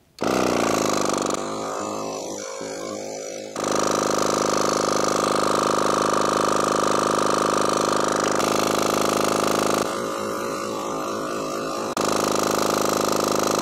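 A Slime twin-cylinder 12-volt tire inflator compressor running steadily under load while pumping up a car tire. It is loud, reading about 90 dB on a sound level meter, and its tone shifts abruptly a few times.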